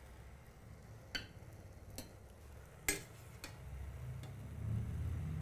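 A metal spoon clicks sharply against a cooking pot three times, about a second apart, as boiled khinkali dumplings are lifted out of the water. A low rumble grows louder near the end.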